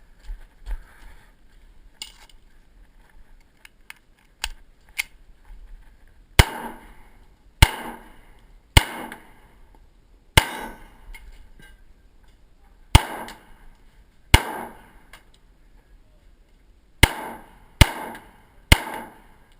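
Beretta 92FS 9mm pistol being fired in a timed string: nine loud shots with short ringing tails, spaced unevenly from under one to about two and a half seconds apart, some as quick pairs. Fainter knocks come in the first few seconds, before the shooting starts.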